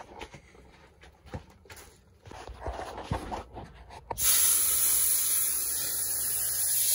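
Faint clicks and rustling, then about four seconds in a loud, steady hiss starts abruptly and keeps going, like gas or air rushing out.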